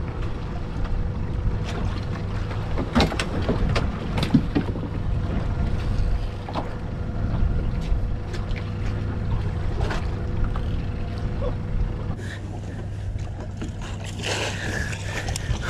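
Boat engine idling with a steady low hum, over scattered clicks and knocks from reeling in a hooked sea bass and handling the landing net. A splashing patch comes about fourteen seconds in, as the fish is brought to the net at the water's surface.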